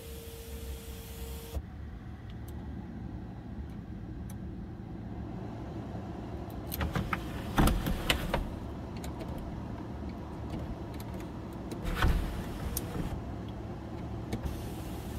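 2015 Hyundai Azera's power sunroof motor running as the glass panel slides, a steady low hum starting about a second and a half in. Sharp clicks and clunks come about halfway through and again a few seconds later.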